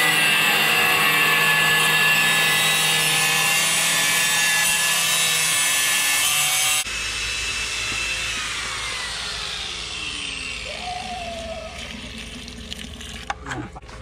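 Handheld angle grinder cutting a porcelain marble-look tile: a steady high whine with a grinding hiss that cuts off abruptly about seven seconds in, followed by fainter sounds with a slowly falling whine.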